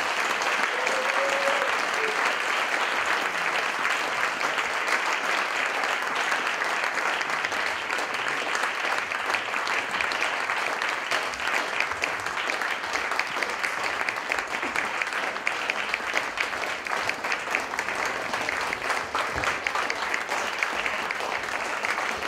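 Audience applauding: dense, steady clapping that keeps an even level.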